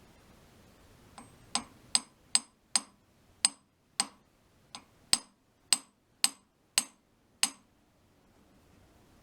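About a dozen light hammer taps on steel, unevenly spaced about half a second apart, each with a short high metallic ring. The copper hammer is nudging an adjustable lathe center to true it and take out runout.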